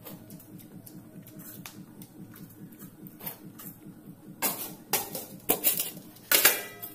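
Stainless steel bowls and plates clattering as they are picked up and stacked. Faint small clinks come first, then a run of loud clanks with ringing in the last two and a half seconds.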